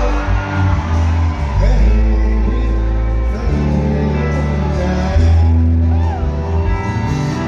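Live band playing loudly through a concert PA, with heavy bass, electric guitars and keyboards, and some singing.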